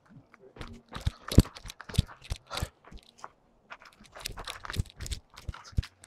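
Footsteps crunching on a rough hiking trail: irregular crunches with dull thuds, several a second, louder in the middle of the stretch.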